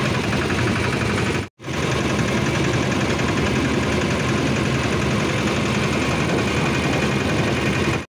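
Rail inspection motor trolley's engine running steadily as the trolley rolls along the track, a loud, even mechanical noise. The sound cuts out for an instant about a second and a half in.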